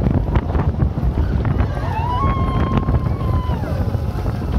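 Wind buffeting the microphone over the rumble and clatter of a Mack steel roller coaster train running along its track, ridden in the back row. In the middle, a rider lets out a high, held scream for about two seconds.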